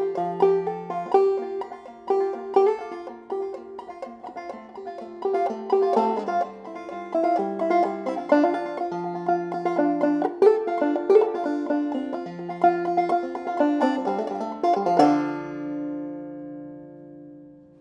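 Pisgah Tubaphone short-scale maple open-back banjo playing a tune in a quick run of plucked notes, then a final chord struck about fifteen seconds in that rings on and fades away.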